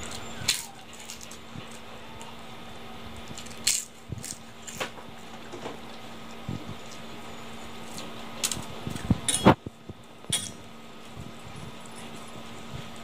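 Scattered sharp clinks and clicks of metal bangles and rings against a steel plate as fingers mix and scoop rice, over a faint steady hum.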